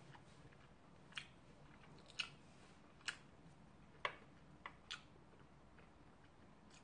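Quiet eating sounds during a mukbang: about six short, sharp clicks, roughly a second apart, from chewing and handling food with wooden chopsticks.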